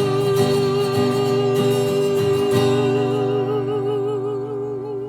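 A woman's voice holding the last sung note with vibrato over a strummed acoustic guitar. The strumming stops about halfway through, and the final chord rings on under the voice until both fade at the end.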